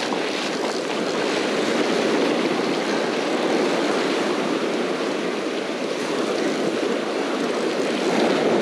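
Steady rush of surf breaking and washing up over the sand, mixed with wind noise on the microphone.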